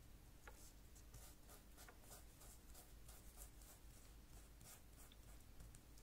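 Faint rubbing and rustling of fingertips pressing a painted leaf down onto paper to take a print, a run of short, soft scratchy strokes.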